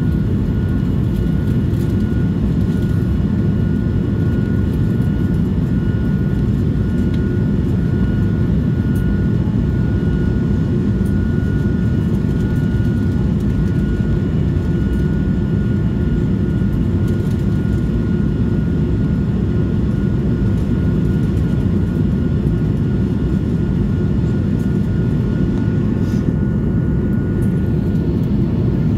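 Steady cabin noise of an Airbus A220-300 climbing after takeoff, heard from a rear window seat: its Pratt & Whitney PW1500G geared turbofans make a dense low rumble with a thin steady whine above it.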